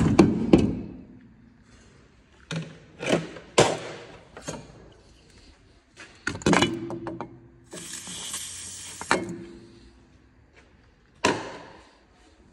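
Metal knocks and clanks from work on a car's exhaust, coming in irregular groups; several leave a short metallic ring. A brief hiss sounds about eight seconds in.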